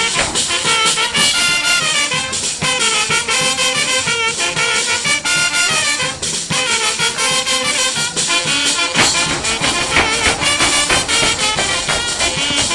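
Brass band music playing a chilena for the Pinotepa dance, with a steady beat.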